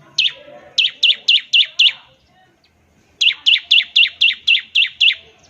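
Bar-winged prinia (ciblek) calling in rapid runs of sharp chirps, each a quick downward sweep, about four a second: a single note, then a run of five, a pause of over a second, then a longer run of about nine.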